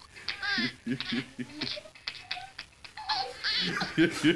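A baby and a man laughing in short repeated bursts on a played video, then about three seconds in several young men start laughing along.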